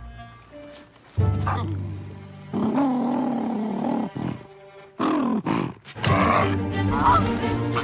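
Cartoon animal vocalisations, growl- and roar-like cries bending in pitch, over a music score. A sudden loud entry comes about a second in, and a busy, loud flurry of sound near the end as the creatures scuffle.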